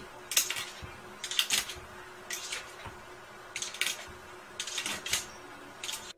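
A small dog's claws scratching and scraping at a wooden kitchen cabinet as it paws at it, in about six short scratchy bursts roughly a second apart.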